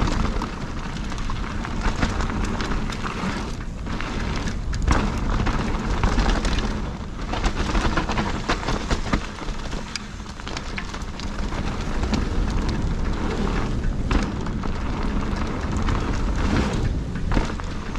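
Mountain bike tyres rolling fast over a loose gravel and stone trail: a dense, steady crackle and crunch of stones, with many small knocks from rocks under the wheels.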